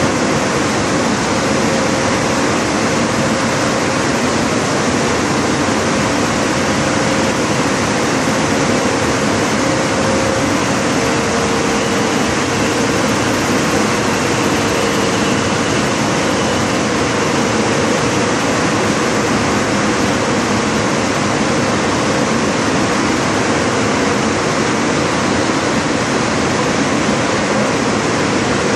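Ten-colour rotogravure printing press running: a loud, steady machine and air rush with a faint steady hum underneath, unchanging throughout.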